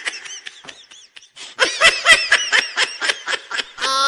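A person laughing in quick repeated bursts. The laughter dies down about a second in and comes back loud about a second and a half in. A long held note starts near the end.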